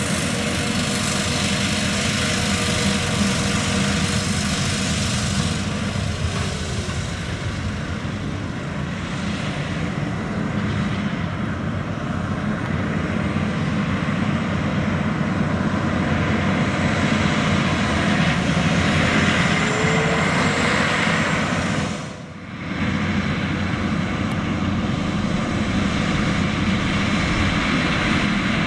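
John Deere 9520RX quad-track tractor's engine running steadily under load while pulling a fertilizer spreader, a continuous mechanical drone. The sound dips briefly about 22 seconds in.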